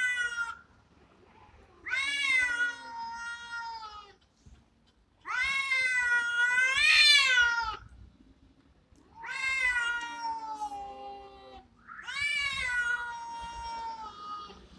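Two cats in a territorial standoff yowling at each other: long, drawn-out, wavering howls, about four of them, each two to three seconds long with short pauses between. The louder middle call rises in pitch toward its end.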